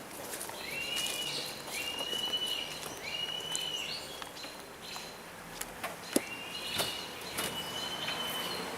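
A bird singing: a clear whistled note repeated about once a second, in two runs with a pause of a few seconds between them, with a few faint clicks in the background.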